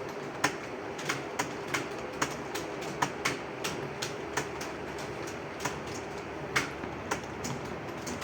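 Several computer keyboards being typed on at once: irregular, overlapping key clicks a few times a second over a steady background noise.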